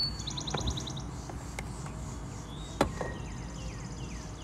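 A kitchen knife knocking a few times against a plastic cutting board while nectarines are cut around the pit. The sharpest knock comes nearly three seconds in.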